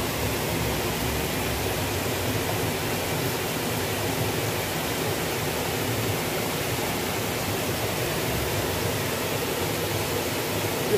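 Fast-flowing river water rushing steadily over rocks and a low weir, a constant even roar. A short knock comes right at the end.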